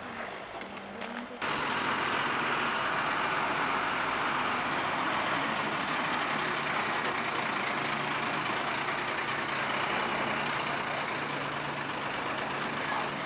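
Fire engine running steadily: a low engine hum under a loud rushing hiss that starts abruptly about a second and a half in.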